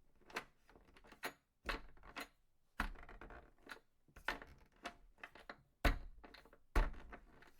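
An irregular run of sharp clicks and knocks, about two a second, with a few louder thuds among them.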